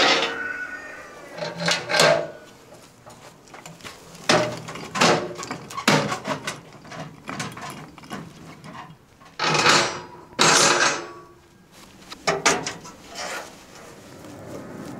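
A steel wood-burning stove being handled: a string of separate sharp metal clanks and knocks, a second or so apart, as its round stovetop lids and fittings are moved. The first clank rings briefly.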